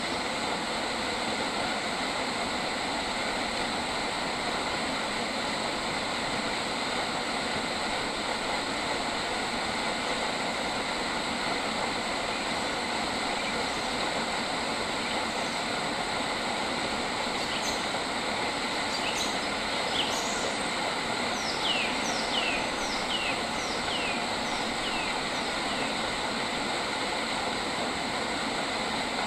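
A bird calling a run of about seven short, clear whistled notes, each sliding sharply down in pitch, starting about two-thirds of the way through, over a steady, dense outdoor hiss.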